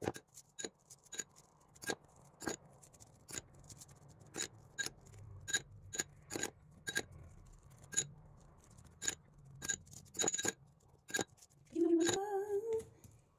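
Metal spoon clinking repeatedly, sharp ringing clicks about twice a second, as it is dipped in egg yolk and worked over the pies. Near the end, a short hummed note that rises in pitch.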